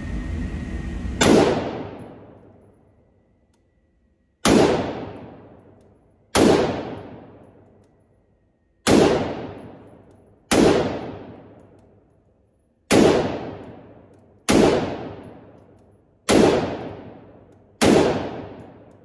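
Nine single rifle shots on an indoor shooting range, fired slowly about one and a half to two and a half seconds apart, each ringing off the range walls as it dies away.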